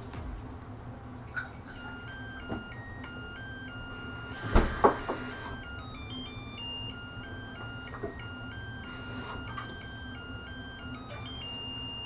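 Zojirushi rice cooker playing its electronic beep melody to signal that cooking has finished, a simple tune of single pure notes. A couple of loud knocks come about four and a half seconds in.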